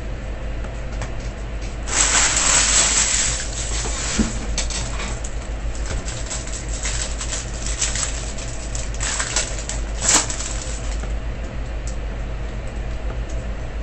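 Wrapper of a baseball trading-card pack crinkling and tearing as the pack is opened, loudest about two seconds in, then a run of crackles and card clicks as the cards are pulled out and handled. A steady low hum runs underneath.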